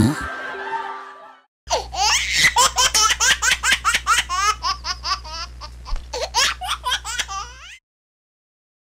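A toddler laughing hard in a long run of quick, breathy giggles that stops abruptly near the end. The tail of a music track fades out just before the laughing starts.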